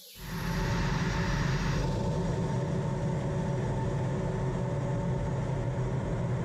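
A-10 Thunderbolt II's turbofan jet engines running, heard from the open cockpit: a steady drone with a strong low hum and a few constant tones.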